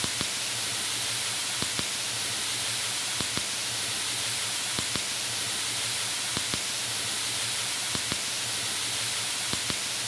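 Steady rush of a waterfall pouring down a rock face into its plunge pool.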